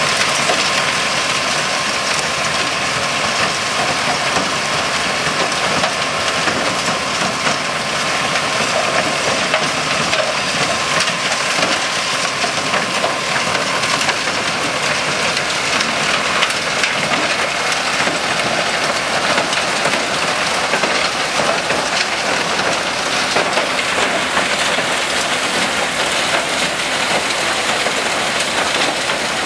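Rubble Master RM80 mobile impact crusher running steadily, with crushed stone pouring off its discharge conveyor onto a pile: a loud, continuous clatter of rattling rock over the machine's running noise.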